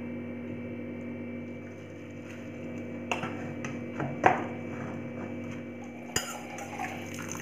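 A metal cooking pan clinking and scraping against a steel strainer in a sink as boiled noodles are tipped into it. There are a few sharp knocks, the loudest a little after four seconds in, over a steady low hum.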